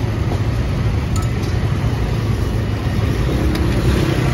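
Steady low rumble of road traffic, with motor vehicle engines running.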